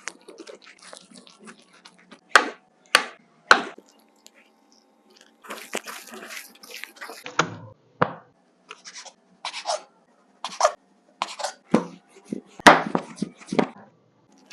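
Hand food-preparation sounds in a kitchen: a series of short, sharp knocks and scrapes at an irregular pace, some loud, over a faint steady hum.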